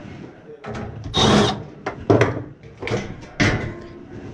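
Handling noises from work on equipment: several sharp knocks and clatters with short scraping sounds between them, the loudest about a second in, just after two seconds and near the end.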